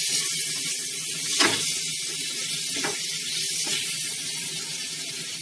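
Potato and tomato cubes sizzling in hot oil in a non-stick wok, a steady hiss, with a couple of short strokes of a silicone spatula against the pan.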